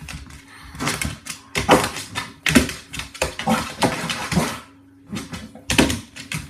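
A dog growling in a string of short, uneven bursts while playing tug-of-war, with scuffling in between.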